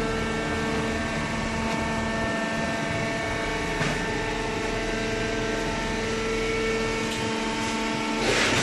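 Paper and card baler machine running, a steady mechanical hum with several held tones and a few faint ticks, growing noisier near the end.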